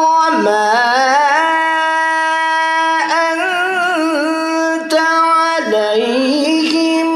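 A man's voice reciting the Quran in melodic tajwid style, holding long drawn-out notes. He glides up into a held note twice, with a wavering run of ornaments in between and a short break for breath near the middle.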